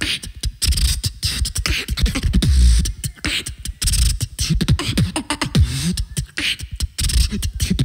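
Live beatboxing through a handheld microphone: a fast rhythm of kick- and snare-like mouth percussion over low bass tones that slide up and down.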